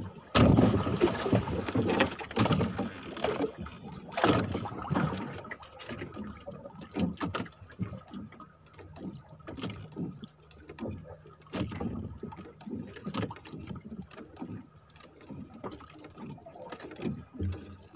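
Fishing handline being worked by hand in a small boat: irregular rustles and light knocks, louder in the first few seconds, then quieter.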